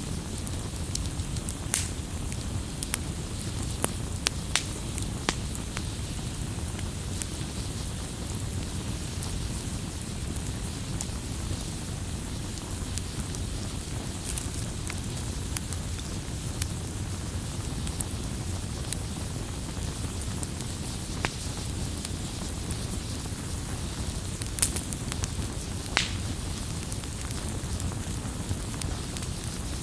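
Firewood burning with a steady low rumble of flame, broken by irregular sharp crackles and pops from the burning wood.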